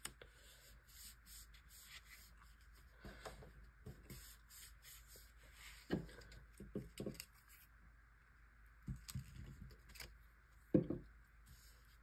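Paper being handled and pressed flat: soft scrapes and rubs with scattered light taps as a glued paper strip is smoothed down onto a journal page, a little louder about halfway through and again near the end.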